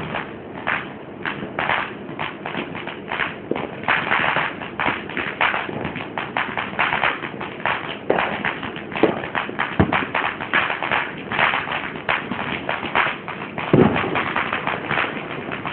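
Consumer fireworks crackling and popping irregularly, several pops a second, with a few louder bangs in the second half.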